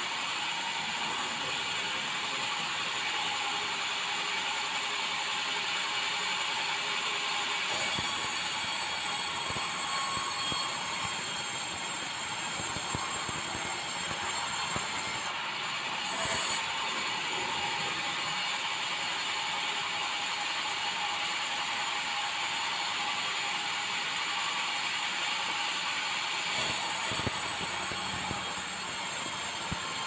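Band sawmill headrig cutting through a bengkirai hardwood log as the log carriage travels. The steady running noise carries a high whine, dips briefly around 15 to 16 seconds in and shifts again about 27 seconds in.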